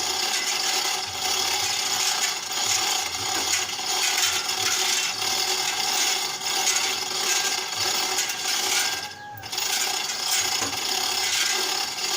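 A manual chain hoist (chain block) being worked: its chain rattles through the block and the ratchet clicks without a break. The sound pauses briefly about nine seconds in.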